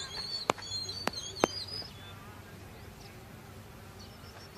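Three sharp knocks within the first second and a half over high, repeated chirping. The chirping stops abruptly near two seconds, leaving a faint steady outdoor background.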